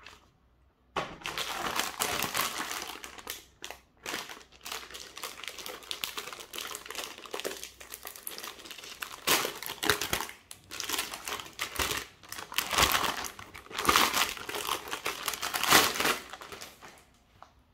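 Metallised plastic anti-static bag crinkling and rustling as a motherboard is pulled out of it by hand. It starts about a second in and goes on in uneven bursts until just before the end.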